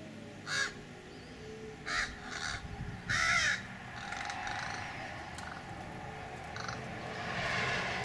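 American crow cawing: four harsh caws in the first few seconds, the last one the longest and loudest, then a faint one later.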